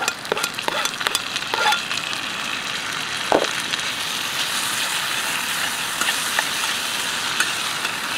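Chopped tomatoes and green chillies dropped into hot oil with golden-brown onions in a pan, starting a sudden loud sizzle that carries on steadily. Utensils click and knock against the pan as the vegetables are stirred, with one sharper knock about three seconds in.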